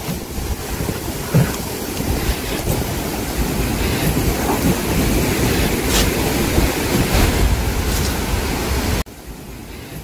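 Strong gusty wind buffeting the microphone as a dense rushing noise that surges and eases. It drops off sharply near the end.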